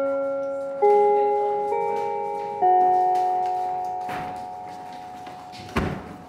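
School bell chime ringing four bell-like notes about a second apart, each ringing on and fading slowly: the dismissal bell at the end of class. A knock sounds near the end.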